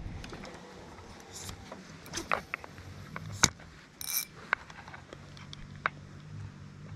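Scattered small clicks and knocks of fishing tackle being handled in a boat, with a short rattle about four seconds in and a faint low hum starting about five seconds in.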